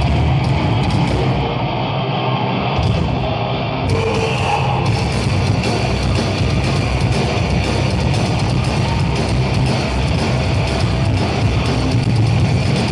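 A heavy metal band playing live: distorted electric guitars and a drum kit, loud, dense and unbroken.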